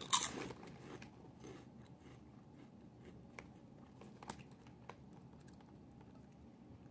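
A person bites into a crispy layered potato snack (Lay's Layers Three Cheese), with a crunch just after the start. This is followed by quieter chewing with a few faint crunches.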